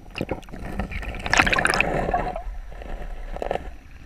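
River water splashing and gurgling as a brown trout is held in the current at the camera and released, with the loudest splash about a second and a half in.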